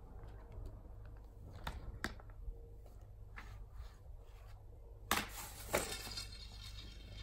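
Telescopic fibreglass antenna pole being extended by hand: sections sliding out with a few light clicks, and two sharper knocks a little after five seconds in, over a low steady rumble.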